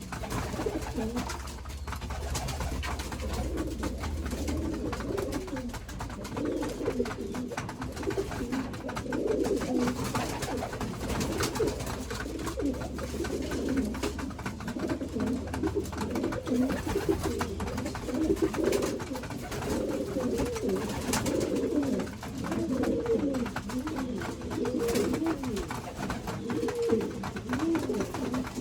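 Domestic pigeons cooing continuously, many birds at once, in low overlapping wavering calls.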